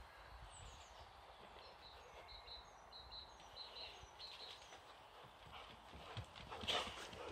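Boxer dog's paws stepping and claws clicking on wooden deck boards. A bird repeats a short high chirp in the background, and there is a brief louder clatter near the end.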